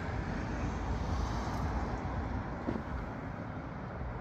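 Wind buffeting the microphone, a steady low rumble that flickers in strength, with a faint tick near three seconds in.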